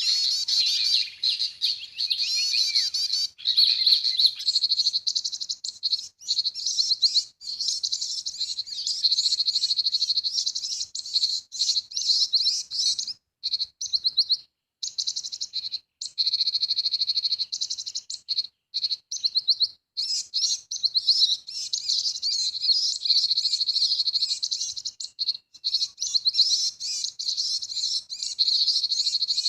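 Bird-call lure recording played from a small speaker to draw birds to a trap: dense, rapid high chirping and trills. It drops out abruptly to silence a few times around the middle.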